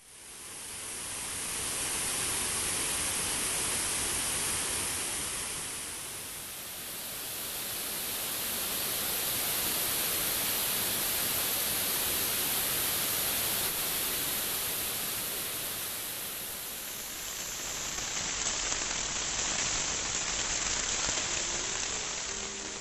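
Waterfall: a steady rush of falling water, in several takes that change slightly at about six and eighteen seconds in.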